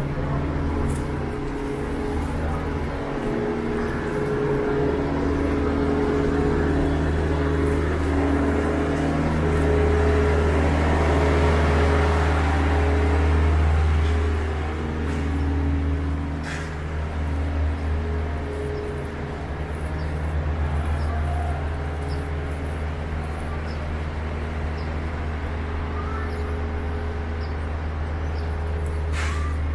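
City street traffic on wet pavement: a steady low engine hum with the hiss of car tyres on the wet road, swelling to a peak about ten to fourteen seconds in and then easing off.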